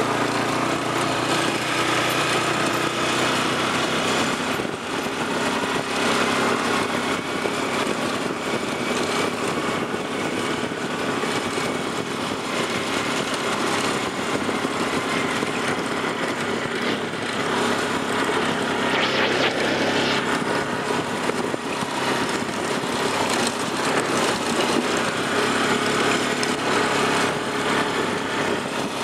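ATV engine running steadily while riding along a dirt trail, mixed with a steady hiss.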